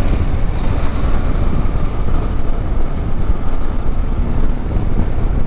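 Motorcycle being ridden at road speed: wind rushing over the microphone, with the engine and road noise underneath as a steady low rumble.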